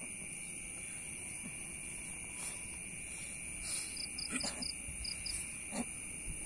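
Crickets and other night insects trilling steadily, with a run of rapid high chirps about four seconds in. A couple of short vocal noises come near the end.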